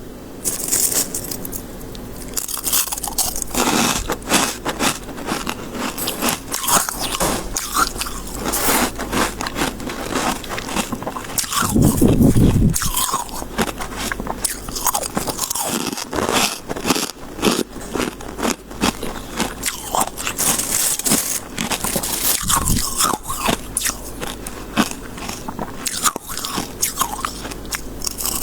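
Close-miked biting and chewing of soft, snow-like freezer frost ice: dense, irregular crunching, with a louder, deeper burst of about a second near the middle.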